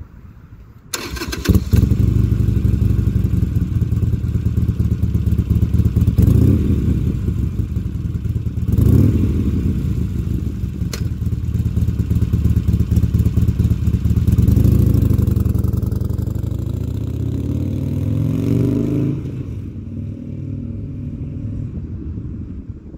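Harley-Davidson Sportster 883's V-twin running through a Supertrapp SuperMeg 2-into-1 exhaust: it starts suddenly about a second in, is blipped a couple of times, then pulls away with rising revs and fades off.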